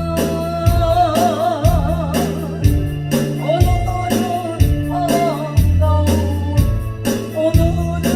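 A voice singing a song with strong vibrato over a backing track with a steady drum beat and a stepping bass line.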